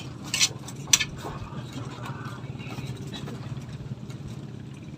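A small engine running steadily at idle, with two sharp clicks in the first second.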